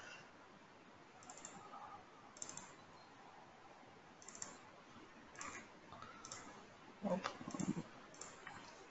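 Faint computer mouse clicks, about eight of them spaced irregularly, with a brief louder low sound around seven seconds in.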